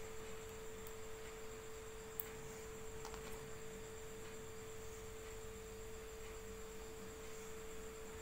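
Faint, steady single-pitched hum, one pure tone held without change, over low background noise, with one small click about two seconds in.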